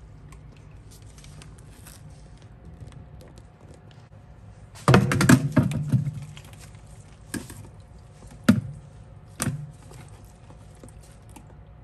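Kitchen handling sounds at a stainless steel sink: a loud clatter about five seconds in, then three sharp clicks from a plastic clamshell container as raw beef liver is tipped out of it into a bowl, over a faint steady hum.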